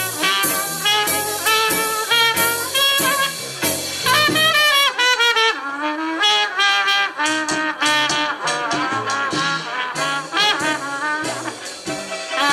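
Brass-led swing jazz music, trumpets and trombones playing fast pitched phrases with a falling slide in the middle, played back on a Telefunken HP 830 T cassette boombox.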